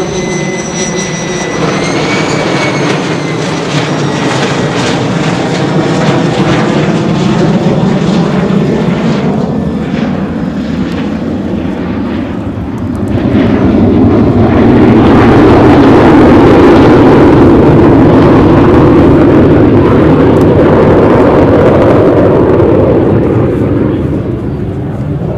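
Lockheed U-2S Dragon Lady's single F118 turbofan jet engine in a low flypast. A high whine comes first as it approaches. After it passes, a loud jet rumble swells from about halfway through and eases off near the end as it flies away.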